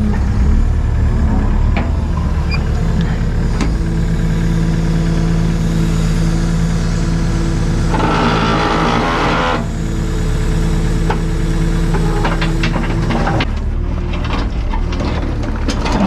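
Takeuchi TB285 compact excavator's diesel engine running steadily as it works. A few seconds of hiss come around the middle, and a run of sharp knocks and clacks near the end as rip-rap rock is handled.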